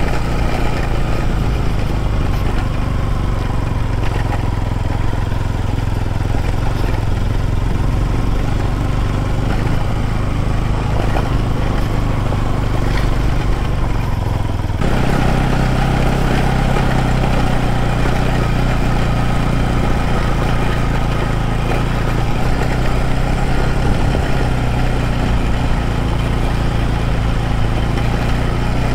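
Motorcycle engine running steadily, its note shifting abruptly about halfway through.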